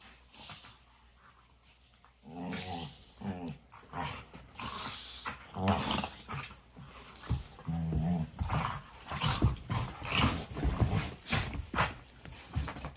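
A dog growling in a series of short growls, starting about two seconds in and coming thicker and louder in the second half.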